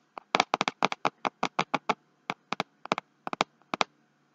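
Fingers tapping on a cutting mat: a quick run of light, sharp taps at about five a second, then slower scattered pairs.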